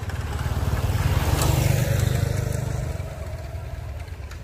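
A motor vehicle's engine passing by, swelling to its loudest about one and a half seconds in and then fading away.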